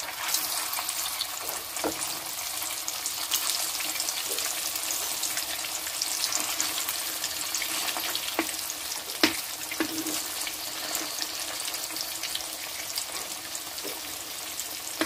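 Meat patties sizzling in hot oil in a wok: a steady hiss with fine crackling and spattering, and a few sharp clicks of a metal ladle and spatula against the pan.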